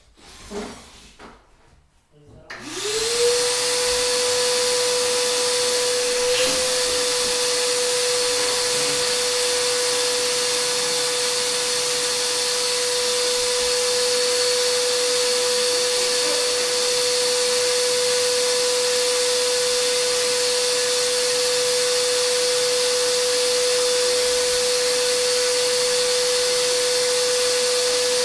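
An electric blower motor, of the kind in a vacuum, switches on about two and a half seconds in. It spins up within a second to a steady whine over a loud rush of air and runs on unchanged.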